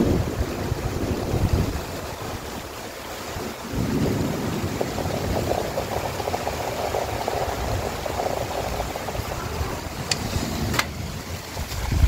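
Storm wind gusting and heavy rain falling, with wind buffeting the microphone as a low rumble that eases after about two seconds. Two sharp clicks come near the end.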